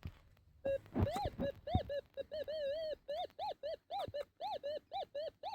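Metal detector target signal: a steady electronic hum broken by short beeps that rise and fall in pitch, about two a second, as the coil passes back and forth over a buried target. The detector reads it as junk and then as gold, a signal worth digging.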